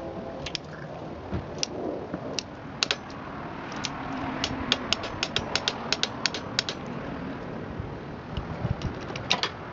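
Ratchet wrench on an extension clicking as its handle is swung back and forth to turn a spark plug: scattered single clicks, then a quick run of clicks in the middle and another near the end.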